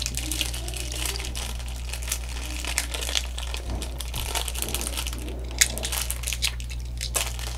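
Plastic and cardboard toy packaging crinkling and crackling as it is handled and pulled open, in quick irregular crackles with a few sharper snaps near the end. A steady low hum runs underneath.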